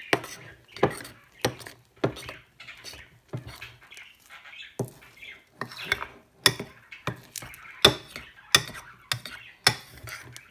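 A metal utensil stirring thick, wet slime in a bowl: sharp knocks and scrapes against the bowl's side, about one to two a second, with squelching of the slime between them and a short pause near the middle. The slime is being mixed with freshly added activator and is just starting to come together.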